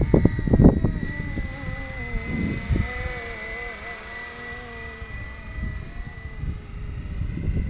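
470-size BO 105 scale RC helicopter in flight, its drive giving a steady high whine with lower tones that waver up and down. Wind gusts buffet the microphone, strongest in the first second.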